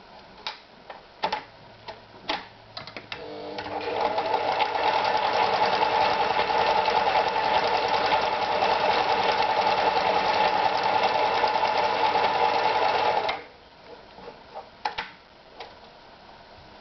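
Privileg Super Automatik TopStar 796 sewing machine: a few separate clicks, then the machine starts about three seconds in, comes up to speed and runs steadily for about nine seconds before stopping abruptly. A few more clicks follow.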